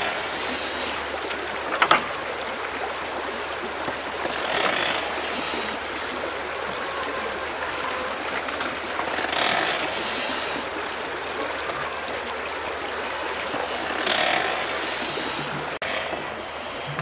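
Steady rush of a small stream's flowing water, swelling a few times, with a single sharp knock about two seconds in.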